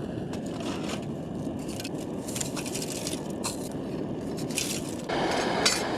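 Gasoline camp stove burning with a steady roar, while snow is scraped and scooped with scattered crunches and clinks. A louder rushing noise comes in about five seconds in.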